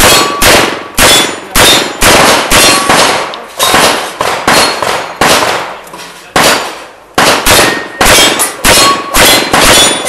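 Rapid revolver gunshots from a 4-inch Smith & Wesson 625, about two a second, each sharp crack followed by the brief clang and ring of steel targets being hit.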